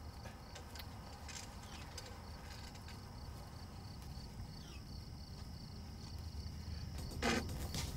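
Faint outdoor ambience: an insect chirping in an even, rapid pulse over a low steady hum, with a brief soft burst of noise near the end.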